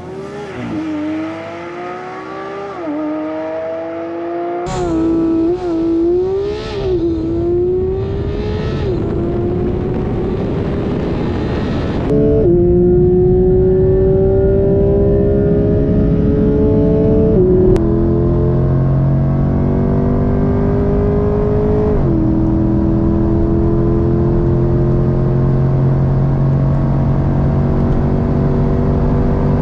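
A naturally aspirated 4.0-litre flat-six (Porsche 992 GT3) and a naturally aspirated 6.2-litre V8 (Corvette C8 Stingray) accelerating flat out from a standing start in a drag race. The engines rev, then launch about four to five seconds in, changing up rapidly with a quick drop in pitch at each gear. In the higher gears the pitch climbs long and slowly, with an upshift a little before halfway and another about three quarters of the way through.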